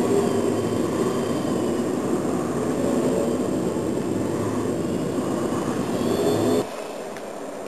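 Small electric indoor RC aerobatic plane flying in a gymnasium, its motor and propeller whine rising and falling in pitch with the throttle. About a second before the end the sound drops off abruptly to a quieter background.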